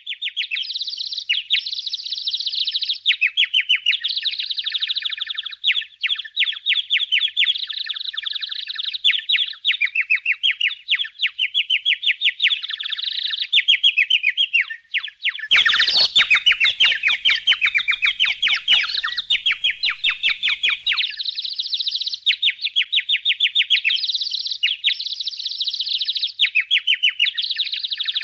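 Budgerigars chirping rapidly and without pause in a dense, high twittering chatter. Partway through, for about five seconds, a run of sharp clicks or taps joins in.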